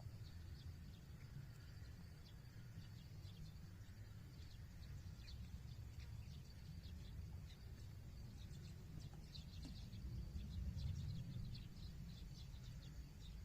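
Faint outdoor ambience: small birds chirping in short, high, scattered notes that come thicker in the second half, over a steady low rumble that swells briefly near the end.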